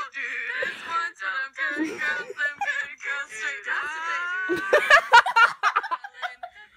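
Several layered female voice tracks from an Acapella app multi-track recording, played back through a phone speaker, singing and vocalising together with sliding pitches. A few sharp clicks come about five seconds in.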